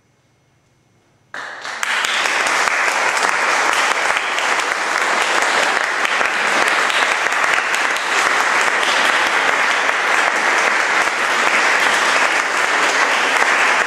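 Near silence, then an audience bursts into applause about a second in and keeps clapping steadily.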